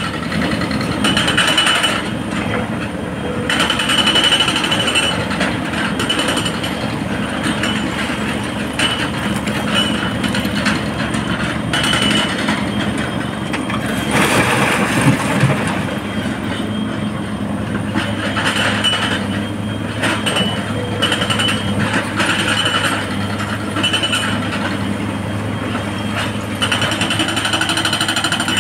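Sany SY225C crawler excavator working in a rock quarry: its diesel engine and hydraulics run under load with a steady, fast rattle as it digs and loads blasted rock. About halfway through, a louder crash of rock is tipped into a dump truck's steel bed.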